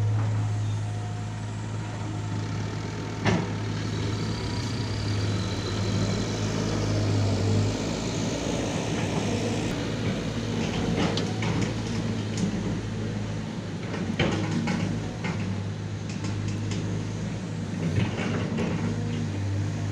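Diesel engine of heavy construction machinery running steadily with a low hum, with a few sharp knocks and clanks, the loudest about three seconds in.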